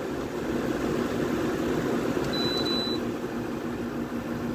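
Keystone window air conditioner running on high fan in cool mode, a steady whir with a low hum. A little over two seconds in, its control panel gives one high beep lasting under a second.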